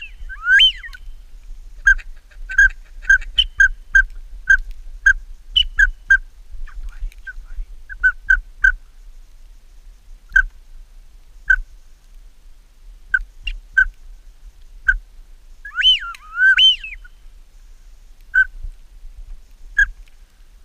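Whistled duck calling: a quick run of short, clear chirping whistles, about two a second, that thin out after several seconds. A pair of rising-and-falling whistles comes near the start and again about two-thirds of the way through.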